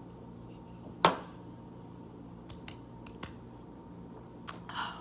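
A single sharp click about a second in, then a few faint ticks and a short soft rustle near the end, over a steady low hum.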